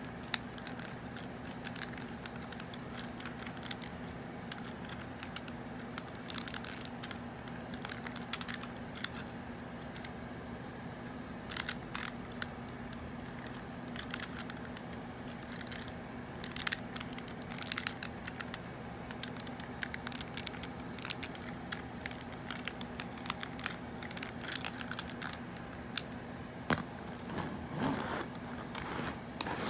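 Small plastic clicks, snaps and rattles of a vintage G1 Hot Rod Transformers toy being folded into car mode by hand, parts clicking into place at irregular moments. Near the end, a longer scraping rustle as the finished car is pushed along the tabletop.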